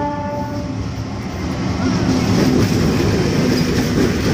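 A diesel locomotive's horn ending in the first half-second, then the locomotive and its passenger coaches passing close by: a loud, steady rumble of engine and wheels on the rails.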